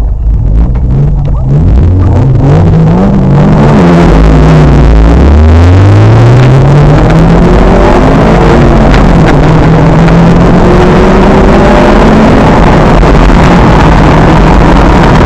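Car engines at full throttle in a drag run, revving up through the gears with several rising runs in the first few seconds. Then a steady, loud engine drone at speed.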